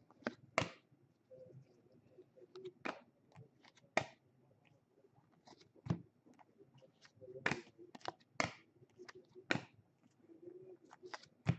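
Baseball trading cards being handled and flipped through: irregular sharp clicks and flicks of card stock, a dozen or so spread unevenly.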